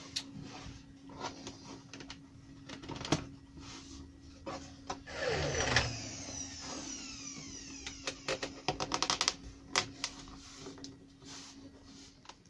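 Light knocks and clicks of thin tulipwood beading strips being handled and pressed into the rebate of a door frame, over a steady low hum. There is a brief scraping slide about halfway through and a quick run of taps about two-thirds of the way in.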